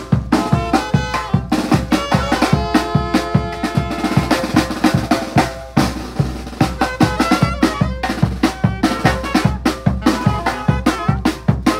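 Tamborazo band playing live: saxophones and brass carry the tune over a tambora bass drum keeping a quick, steady march beat. Around the middle the drumming thins briefly under held horn notes, then picks up again.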